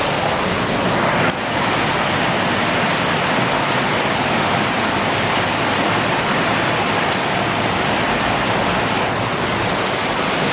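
Cave streamway water rushing steadily, a loud even noise of flowing and falling water in the underground passage.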